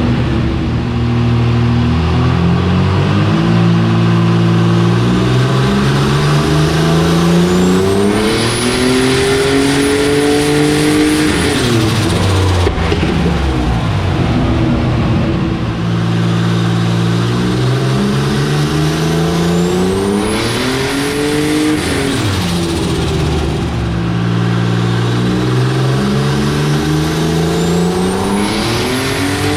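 Turbocharged Ecotec V6 engine in a Commodore, run under load on a chassis dyno: it revs up three times, each climb ending in a quick drop in revs. A high turbo whistle rises near the top of each run.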